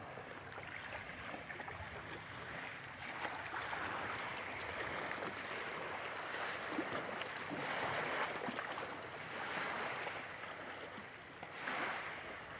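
Steady rushing outdoor noise with no clear tones, swelling and easing slightly now and then.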